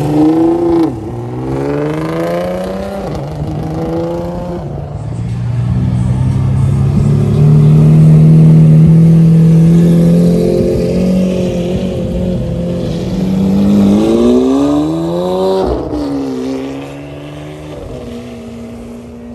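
High-performance sports cars accelerating hard away, the engine note climbing and dropping with each upshift: a Nissan GT-R at the start, then a Lamborghini Aventador's V12. A long loud steady engine note comes in the middle, and another hard pull with an upshift comes near the end.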